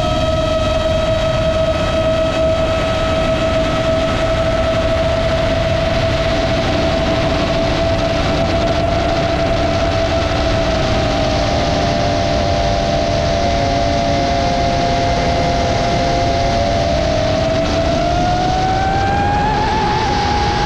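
Motors and propellers of a Roma F4 LR FPV quadcopter whining at a steady cruise, with wind rushing past the onboard camera. The whine splits into two close pitches past the middle, dips slightly, then rises near the end as the throttle comes up.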